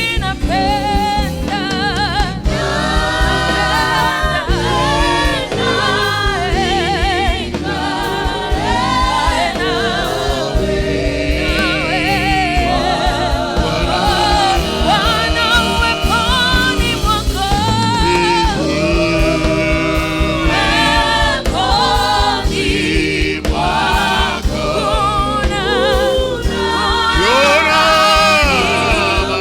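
A gospel song sung in church, a voice with vibrato over a steady musical accompaniment.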